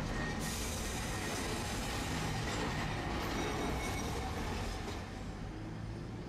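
Street tram rolling on rails close alongside, with wheel-on-rail noise and rumble heard from inside the cab of another tram. The high hiss picks up about half a second in and eases near the end.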